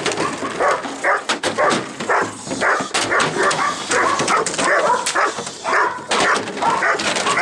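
German Shepherd barking continuously in quick, repeated barks at a man stepping in close to it while it is held on a leash.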